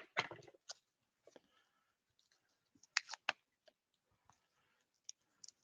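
Packaging and plastic-bagged comic books being handled: a sharp click and brief rustle at the start, a pair of sharp clicks about three seconds in, and a few faint ticks between.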